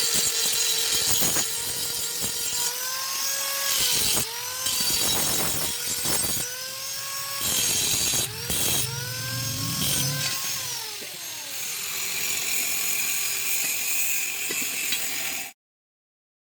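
Angle grinder grinding metal, most likely dressing the weld on the repaired leaf spring. Its whine dips in pitch each time it is pressed into the work and climbs back when eased off, about half a dozen times, with scraping and knocks throughout. The sound cuts off abruptly near the end.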